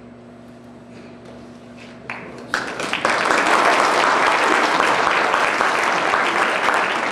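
Congregation applauding. A low steady hum fills the first two and a half seconds, then the clapping starts abruptly and carries on dense and loud.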